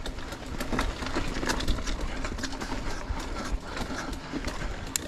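Mountain bike climbing a dirt trail: tyres crunching over rocks and roots, with irregular clicks and rattles from the bike and a low rumble underneath.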